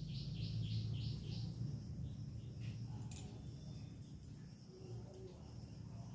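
Rapid repeated chirping, about five chirps a second, for the first second and a half over a low steady hum, with a single faint tap about three seconds in.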